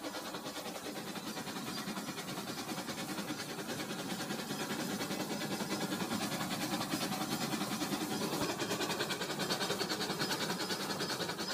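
Rail King toy train running on plastic track, its small motor whirring and its wheels clicking rapidly and evenly. It grows louder over the first few seconds as the train comes toward the camera.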